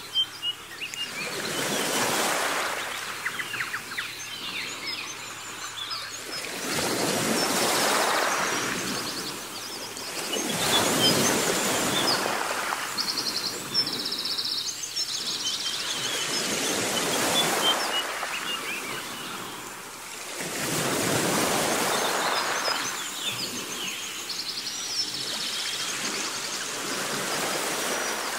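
Sea waves washing ashore, the surf noise swelling and falling away every few seconds, with small birds chirping over it.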